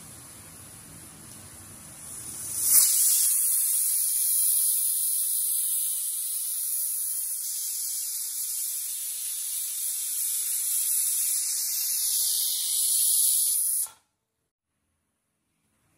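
Aluminium pressure cooker whistling: the weight on its vent lifts and steam rushes out in a loud, high-pitched hiss. The hiss builds quickly about three seconds in, holds steady for about eleven seconds, then cuts off abruptly. It is the sign that the cooker has reached full pressure.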